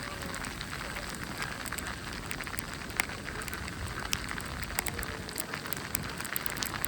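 Snowstorm ambience: a steady hiss with many irregular small ticks and crackles.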